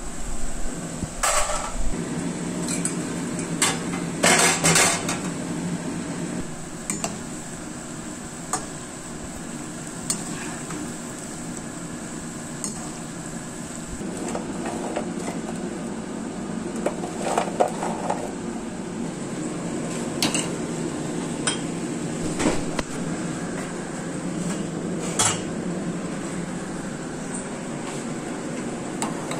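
A metal slotted spoon clinks and scrapes against a frying pan as luqaimat dough balls are stirred and lifted from hot oil. About a dozen separate clinks, the loudest clusters about 4 and 17 seconds in, sound over a steady low background noise.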